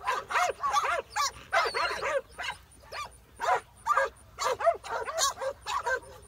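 Herding dogs barking and yipping while working cattle, in quick runs of short, high barks about two or three a second, with a brief pause about midway.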